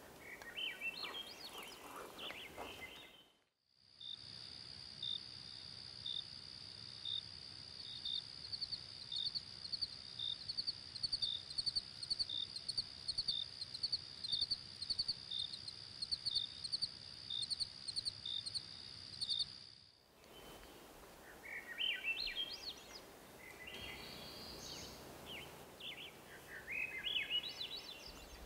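Wild songbirds singing repeated falling phrases near the start and again in the last third. In between, a steady high insect trill runs with short cricket-like chirps about one and a half times a second.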